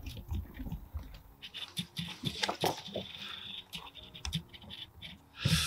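Paper target card being handled and turned in the hand close to the microphone: scattered small scratches, taps and rustles of fingers on card, with a louder brushing rustle near the end.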